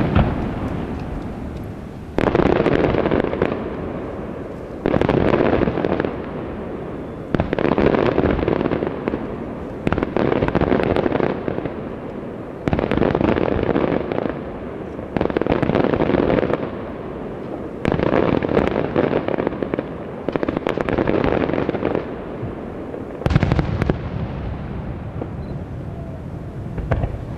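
Aerial fireworks shells bursting one after another, about one every two and a half seconds, each a sudden bang followed by a dense crackling tail that dies away over a couple of seconds. About ten go off, and it falls quieter after the last one, near the end.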